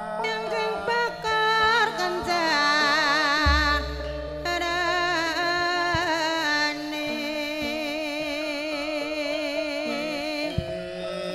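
Javanese gamelan music: sustained metallophone tones under a high singing voice with a wide, wavering vibrato that sings two long phrases. A deep low stroke sounds about three and a half seconds in.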